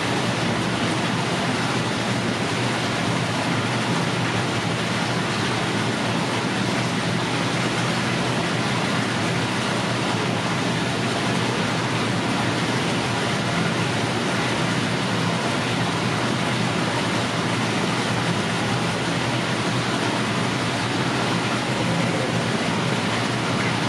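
Steady rushing background noise, even and unbroken, with no distinct events.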